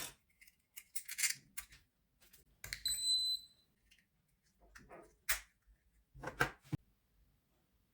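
Scattered clicks and handling taps, with one short, high electronic beep about three seconds in, from the SwitchBot Remote's buzzer.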